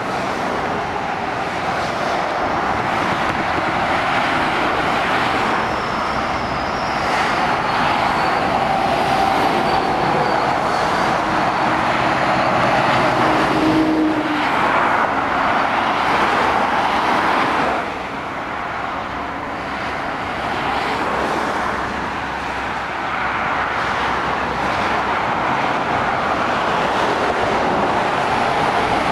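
Motorway traffic passing below: lorries and cars going by at speed, a steady noise of tyres and engines that swells as vehicles pass and eases briefly about eighteen seconds in.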